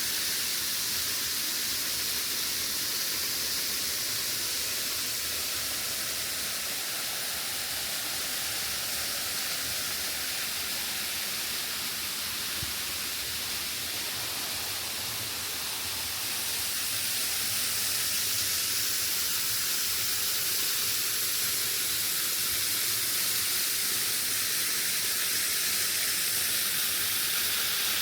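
Waterfall: a steady rush of falling water, growing a little louder a little over halfway through.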